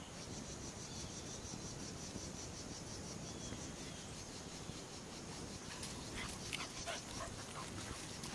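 A dog giving a few faint yips and whines, a play invitation to get another dog to chase her. Under it runs a steady high pulsing chirr at about four pulses a second.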